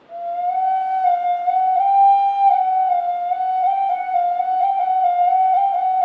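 Native American flute comes in and holds one long note, with small flicks and slips in pitch along the way.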